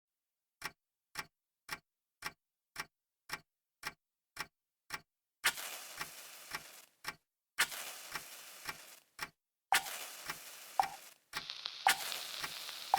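Clock-like ticking, about two ticks a second; from about five seconds in, louder sharp hits with a hissing tail join the ticks every second or two.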